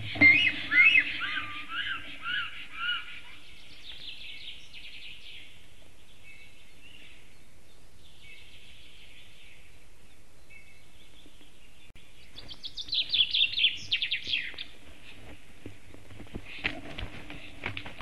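Bird calls: a run of short whistled chirps at the start, faint chirping in between, then a quick burst of higher, rapid chirps later on. Near the end come short clicks and rustling, over a faint steady hum.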